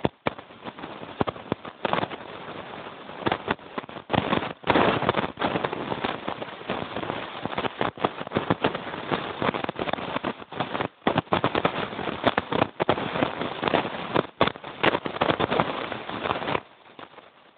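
Sleds being towed over a packed-snow road: a continuous rough scraping and rattling of runners on snow, uneven and broken by brief gaps, that drops away abruptly near the end.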